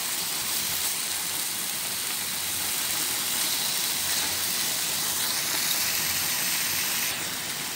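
Liver steaks searing in a little oil in a nonstick frying pan: a steady sizzle.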